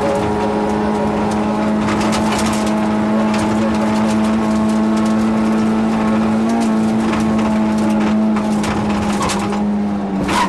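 Yugo rally car's engine heard from inside the cabin, held at steady revs with an almost unchanging pitch, along with scattered sharp clicks of gravel striking the car.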